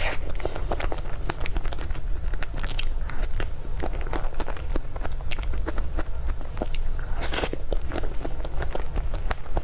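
Close-miked eating: a person chewing and biting food, with many short wet mouth clicks and a louder burst about seven seconds in.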